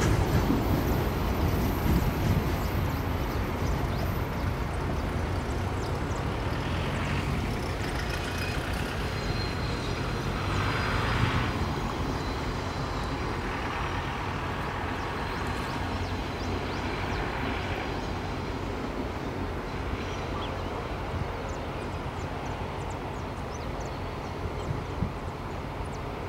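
Rail service train running with a steady low rumble that slowly fades away.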